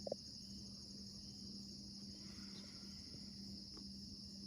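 Faint, steady chorus of crickets chirping, a high, evenly pulsing trill, over a faint low hum.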